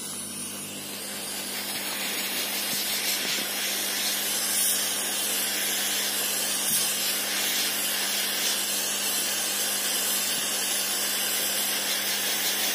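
Hot air gun blowing a steady hiss of hot air onto a phone's back glass, heating it to soften the adhesive before the panel is pried off. The hiss builds up over the first couple of seconds, then holds steady.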